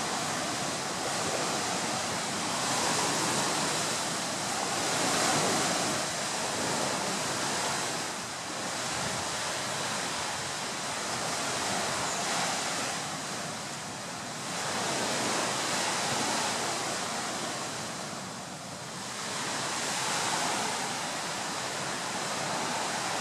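Ocean surf: a steady rush of breaking waves that swells and ebbs every few seconds.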